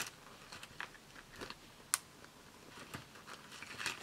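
Faint handling of a small card-and-paper album: light rustles and soft taps of card pages, with one sharp click about two seconds in.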